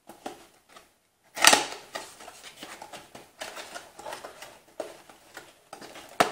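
Handling of a small cardboard CPU retail box: a sharp crack about one and a half seconds in as the box is opened, then a run of small crackles and scrapes of cardboard as the flap is folded back and the inner tray is worked loose, with another sharp click near the end.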